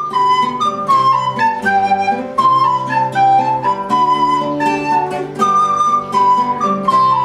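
Wooden recorder playing a melody, accompanied by a classical acoustic guitar plucked in a steady rhythm.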